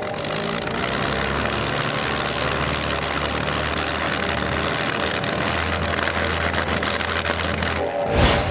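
Steady roar of an aircraft-engine sound effect, its low rumble growing stronger about a second in. Near the end it drops out briefly and a loud whoosh sweeps past.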